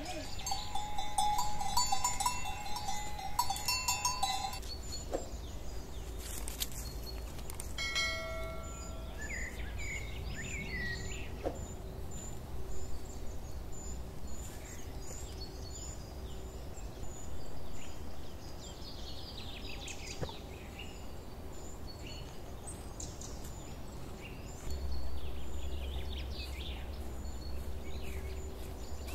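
Forest ambience: birds chirping on and off over a steady low rumble, with a few bell-like ringing tones in the first few seconds.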